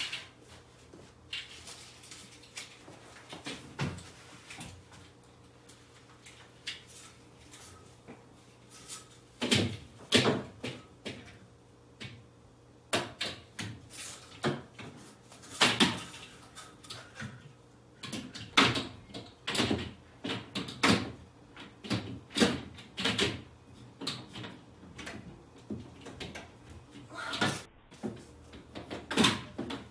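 Venetian blind's slats and headrail clattering and knocking as the blind is lifted and fitted into its mounting brackets: a few scattered knocks at first, then from about ten seconds in a busy run of sharp clicks and rattles.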